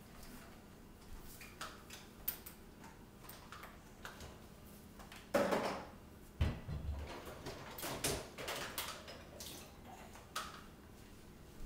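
Scattered clinks and knocks of dishes and containers being handled while a dishwasher is unloaded, with a louder clatter about five seconds in followed by a low thump.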